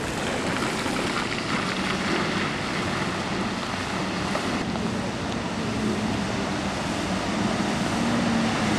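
Mercedes Sprinter van's engine humming as it drives through deep floodwater, under a constant rush and splash of water churned by its wheels. The engine note rises slightly a couple of times in the second half.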